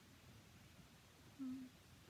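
A woman's short closed-mouth hum, one "mm" held on a single pitch for about a quarter second, about one and a half seconds in, over faint room hiss.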